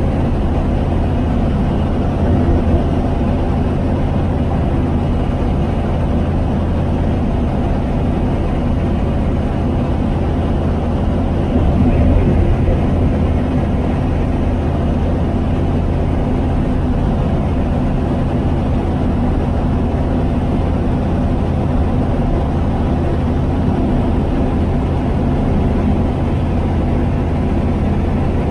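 Apollo Fox ultralight aircraft's engine running steadily in flight, heard inside the cockpit with wind noise over the airframe.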